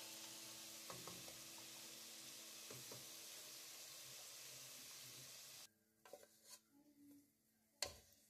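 Kofta fingers sizzling in hot oil in a pot, with a spoon knocking against the pot twice as they are turned. The sizzle cuts off suddenly about two-thirds of the way through, followed by a few light knocks and a sharp clack near the end as the cooked kofta are tipped into a ceramic bowl.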